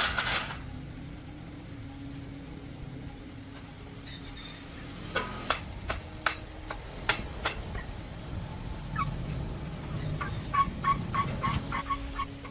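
Sharp metal knocks and clanks during mechanical repair work, then a quick run of light ringing taps, about four or five a second, near the end.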